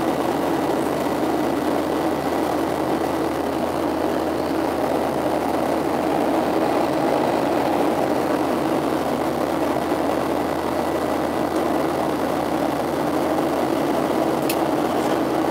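Steady in-flight cabin noise of a Boeing 737-700: the rush of air past the fuselage mixed with the drone of its CFM56-7B turbofan engines, even and unchanging throughout. A single faint click near the end.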